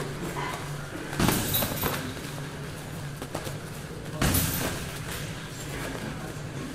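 Sparring strikes, gloved punches and shin-guarded kicks, landing as padded thuds. Two heavier impacts come about a second in and just past four seconds, with lighter ones between, over a steady low hum.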